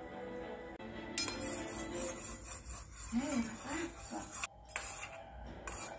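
Metal spoon stirring quickly in a small stainless steel bowl, a rapid run of scraping and clinking strokes that starts about a second in and pauses briefly past the middle, as milk, oil and coconut milk powder are mixed. Music and voices play in the background.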